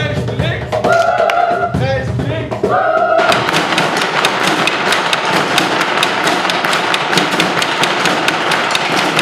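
Voices sing held notes together over low thumps. About three seconds in this gives way abruptly to a fast, steady rhythm of drumsticks beating on plastic buckets and a drum.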